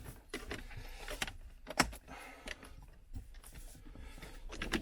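Irregular clicks and knocks of hard objects being handled, the loudest a sharp knock about two seconds in.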